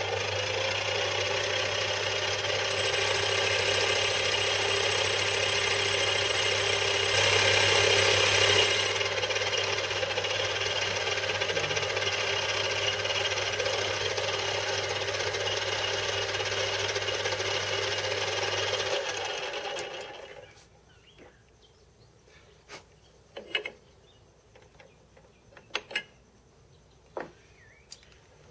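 Small bench lathe running with a faceplate-mounted crank lever, a boring tool taking a light cut to bring its bore up to size; louder for a couple of seconds about seven seconds in. The motor winds down about twenty seconds in, followed by a few light clicks and knocks of metal parts being handled.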